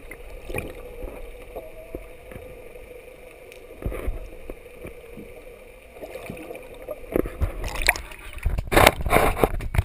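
Muffled water noise and knocks heard through a camera's waterproof housing held underwater beside a boat hull, under a steady faint hum. Near the end the camera breaks the surface, and loud splashing and sloshing take over.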